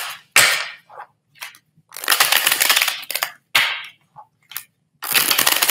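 A deck of tarot cards being shuffled, in several short bursts of rapid flicking clicks, the longest about a second.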